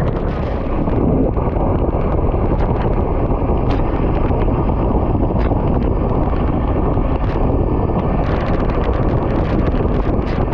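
Wind buffeting a camera microphone while riding fast in a bicycle road race, a steady loud rumble with a few faint ticks.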